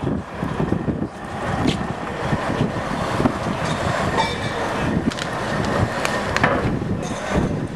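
Heavy truck rolling slowly over interlocking plastic floor panels and a steel grate: a steady engine and tyre rumble with irregular clatters and knocks as the wheels cross the panel joints.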